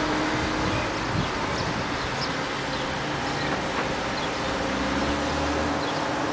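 Mobile crane's diesel engine running steadily, a constant low hum under a broad outdoor noise.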